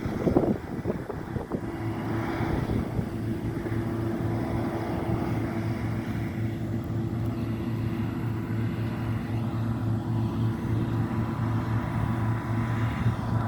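John Deere T670i combine harvester running steadily while cutting, a constant mechanical drone with a low hum and a higher steady tone. Wind buffets the microphone about half a second in.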